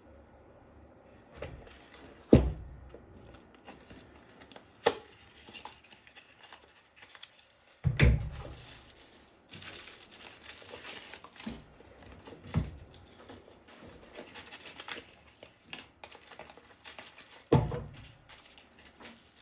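Packaging rustling and crinkling while lathe tool-post parts are unpacked, broken by about five heavy knocks of the metal parts being handled and set down.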